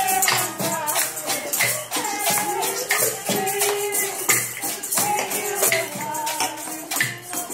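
A group singing a Christmas song to hand percussion: wooden maracas, a plastic shaker and wooden sticks, shaken and struck in a steady rhythm.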